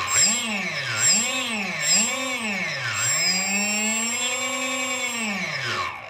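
Electric motor driven through the nRF24L01 joystick transmitter, sped up and slowed down about once a second with a rising and falling whine, then held at speed for a couple of seconds and wound down to a stop near the end.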